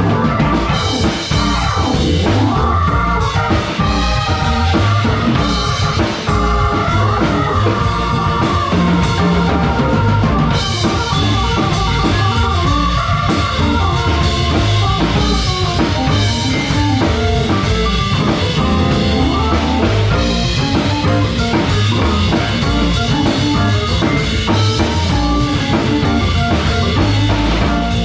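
Small band playing an instrumental jazz-fusion tune: drum kit, hollow-body electric guitar, electric bass and keyboards.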